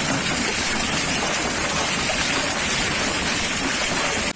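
Hailstorm: hailstones and heavy rain pelting down in a steady, dense wash of noise that cuts off suddenly near the end.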